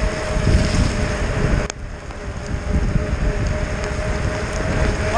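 Wind buffeting the camera microphone while riding a mountain bike downhill at speed, a heavy rumble with a faint steady whine over it. A sharp click comes nearly two seconds in, after which it is a little quieter.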